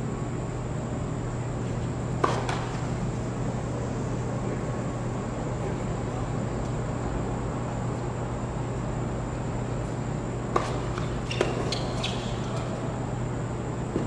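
Tennis ball struck by rackets: a single sharp knock about two seconds in, then a serve about ten and a half seconds in followed quickly by two or three more hits in a short rally. A steady low hum runs underneath.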